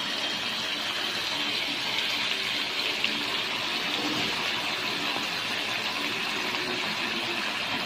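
Wet baby kailan leaves sizzling in hot oil in a wok, a steady hiss.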